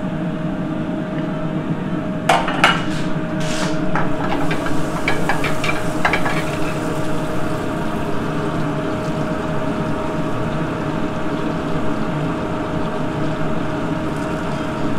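Kitchen sounds over a steady ventilation hum: metal clanks of pans and trays about two seconds in, then a run of lighter clinks. Olive oil and butter fry in a pan on a gas burner as floured, egg-dipped chicken pieces are laid in.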